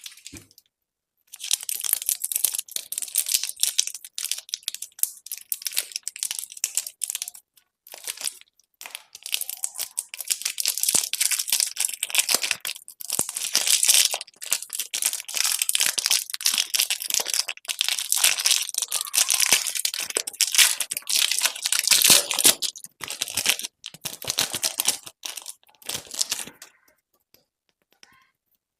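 Candy wrappers crinkling and being torn open: long runs of dense, crackly rustling with short pauses between handfuls.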